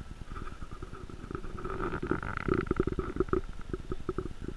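Rapid, irregular crackling and rumbling on the camera's microphone, like handling noise, growing louder around the middle.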